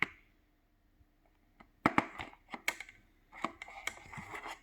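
Handling noises from a die-cast toy's box and packaging: a few sharp clicks and taps about two seconds in, then a soft rustle near the end.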